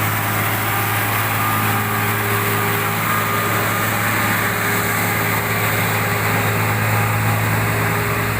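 Scania heavy truck's diesel engine running steadily with a deep hum, pulling a trailer loaded with an excavator up a steep climb.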